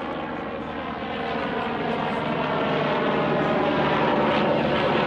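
Steady engine drone with an even pitched hum, growing louder over the first three seconds and then holding.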